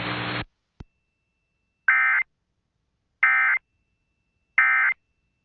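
Receiver static and hum cut off about half a second in. After a click, three short identical bursts of EAS digital data tones follow, evenly spaced about 1.35 s apart. These are the SAME End of Message code, which marks the end of the alert.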